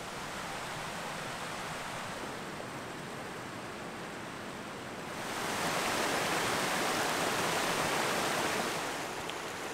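Mountain stream rushing over rocks: a steady rush of water that grows louder about five seconds in and eases again near the end.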